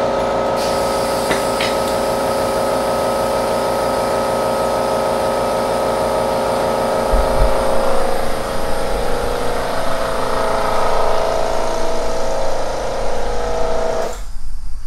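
Small portable electric air compressor running with a steady motor hum while the air-operated motorcycle lifts are raised, then cutting off abruptly near the end.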